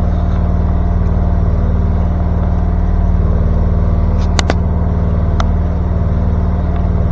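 Small air-cooled engine of a mini excavator idling steadily, freshly started from cold on choke. A few sharp clicks sound about four and a half and five and a half seconds in.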